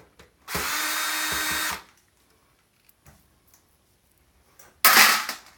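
Power drill driver running in two short bursts, backing screws out of a circuit board's mounting: a steady whine lasting just over a second, then a shorter, louder burst near the end.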